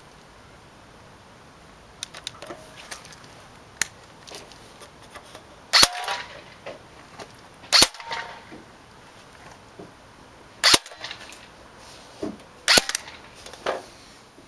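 ASG MP5A5 airsoft gun firing four single shots about two to three seconds apart, each a sharp crack. Fainter clicks and knocks fall between the shots.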